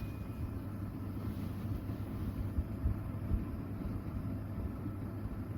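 Electric food dehydrator's hot-air circulation fan running with a steady low rumble.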